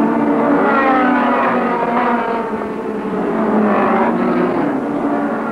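Formula 3 racing cars' engines at high revs, several at once, their pitch rising and falling as the cars go through a bend and past.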